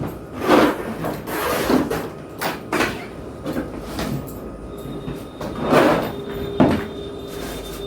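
Trolley suitcases being handled and pulled out of one another: several separate scraping, rustling swishes with a few knocks.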